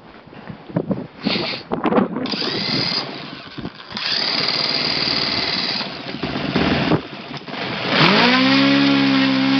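OS FS-61 four-stroke glow engine being cranked by a handheld electric starter, which whines in two bursts. About eight seconds in the engine catches, its note rising quickly and then settling into a steady run.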